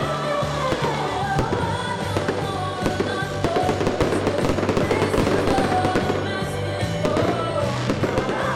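Loud music playing with fireworks popping and crackling in many quick bangs throughout.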